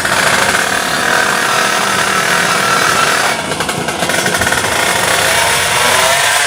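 Two-stroke underbone drag bikes' engines running hard, a dense, rapid buzz.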